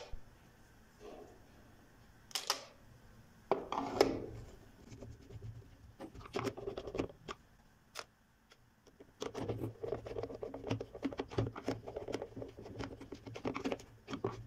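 Hands handling the white plastic base of a juicer, with scattered knocks and taps in the first half. About nine seconds in, a stretch of rapid scratching and rubbing on the plastic begins.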